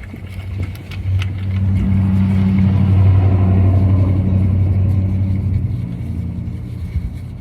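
A motor vehicle driving past: its engine hum builds, is loudest in the middle, and fades away, with a slight drop in pitch as it goes by.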